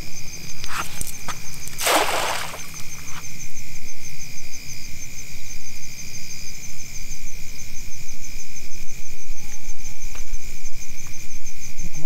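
Crickets trilling steadily at a high pitch. About two seconds in, a short rushing splash, with a smaller one just before it, as a thrown cast net lands on the river.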